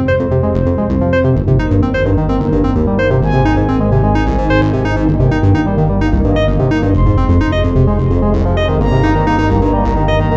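Electronic synthesizer ringtone tune from an HTC phone playing, a keyboard-like melody over a steady beat.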